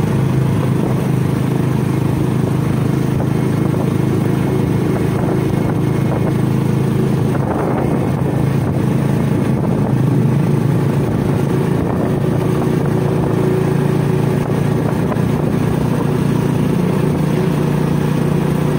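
Small vehicle engine running steadily at an even pace, heard from on board while moving.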